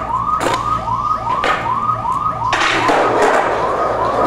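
A siren or electronic alarm sounds a fast, repeating rising whoop, about three a second. There are two sharp clacks about half a second and a second and a half in, and a little past halfway a loud rolling rush of noise joins.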